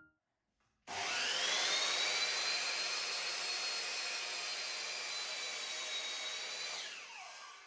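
Electric sliding mitre saw motor starting up with a high whine, running steadily, then winding down with a falling whine near the end.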